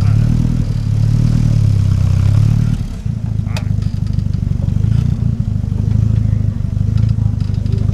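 Trial 4x4 buggy's engine revving under load as it climbs a steep dirt bank, loud for the first few seconds and then easing off to a lower, steady run. A single sharp clank about three and a half seconds in.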